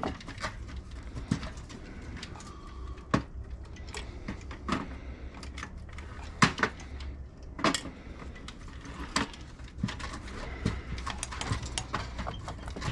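Scattered sharp clicks and clinks of metal parts and hand tools being handled while electronic scrap, heat sinks included, is taken apart.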